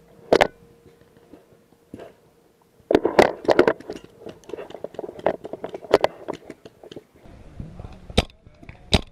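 Sharp clicks, knocks and rattles of a magfed paintball marker and kit being handled, loudest in a quick cluster about three seconds in. Near the end come two sharp cracks.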